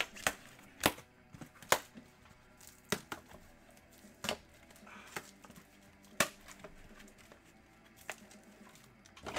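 Sharp clicks and taps, about one a second at irregular spacing, from handling sports card boxes, packs and cases on a tabletop.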